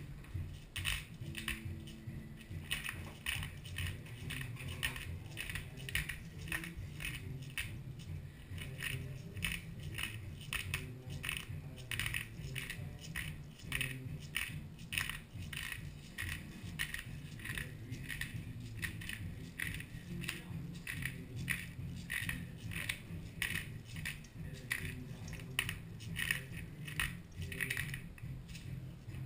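Hand-held metal spice grinder being twisted to grind seasoning: a steady run of crunching, ratchet-like clicks, about two or three a second.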